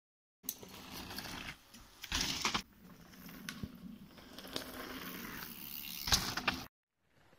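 Mountain bike on a dry dirt trail landing a jump, with a sharp loud thud and rattle about six seconds in. Before that there is a loud burst of rough noise about two seconds in. The sound cuts off suddenly just after the landing.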